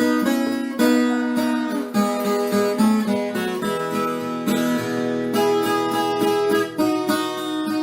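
Instrumental moda de viola: plucked strings, in the style of a viola caipira, playing a melody over sustained lower notes.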